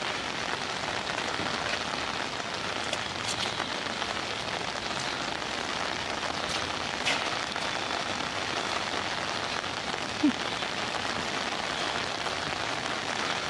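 Heavy rain falling steadily, an even hiss with a few sharper drop taps. About ten seconds in comes one short pitched blip.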